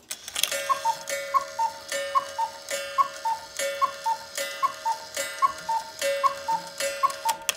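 Cuckoo clock striking nine: the bellows-pipe cuckoo call sounds nine times, a higher note then a lower one, each after a sharp strike of the mechanism. The count wheel is now back in sync, so the strike count matches the hour.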